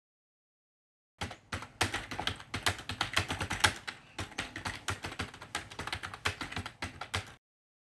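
Rapid, irregular clatter of keys being typed, starting about a second in and stopping abruptly near the end.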